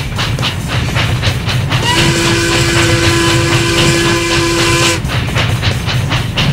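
Steam locomotive chuffing at about four puffs a second, then its steam whistle blowing one long steady note, rising slightly at the start, for about three seconds before the chuffing returns.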